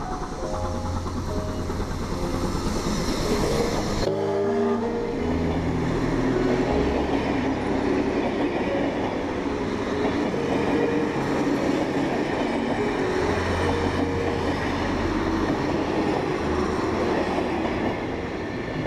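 Steam locomotive 3801 hauling a heritage passenger train past, its wheels and carriages running over the rails, under background music with held notes.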